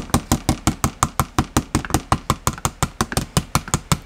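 Rapid, even hammer taps, about seven a second, with a claw hammer on a plastic electrical outlet box, working it into place in the drywall; the tapping stops right at the end.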